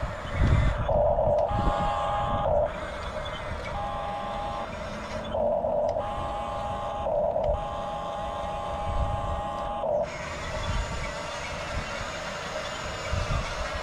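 Huina 1569 RC toy bulldozer's electronic sound effects: steady beeping tones that start and stop several times, over the rumble of its electric track drive.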